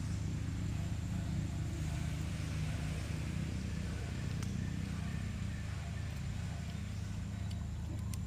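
Steady low motor hum with a few faint clicks.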